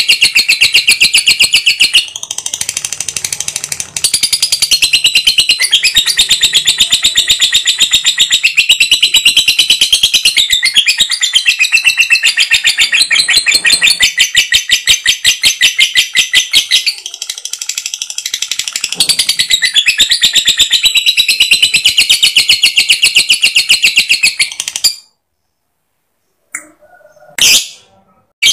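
Lovebird giving a long ngekek: a continuous, rapid, high-pitched chattering trill of evenly repeated notes. It goes quieter twice, breaks off into silence near the end, and is followed by two short high calls.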